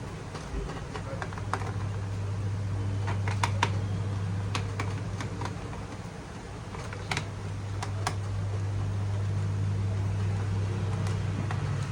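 Small sharp clicks of screws and plastic laptop parts being handled and removed during disassembly, scattered irregularly over a steady low hum.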